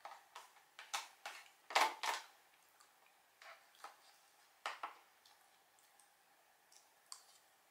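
White plastic fork scraping and clicking against a clear plastic container while scooping up cake: a quick run of short scrapes in the first two seconds, a few more a little past the middle, and one near the end.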